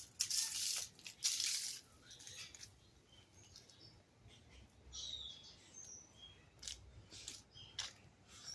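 Birds chirping: short high chirps scattered through the second half, with bursts of rustling noise in the first couple of seconds.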